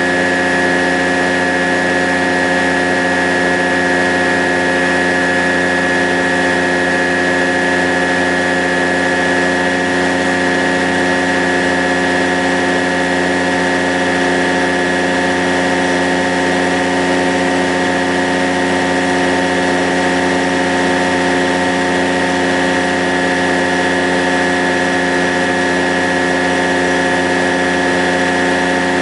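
Rans Coyote ultralight's engine and propeller running steadily in level cruise, heard from inside the cockpit as an even, unchanging drone.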